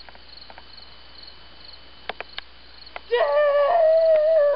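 Crickets chirping in a steady rhythm, about three chirps a second. About three seconds in a woman's voice calls out in one long, drawn-out call that falls at its end.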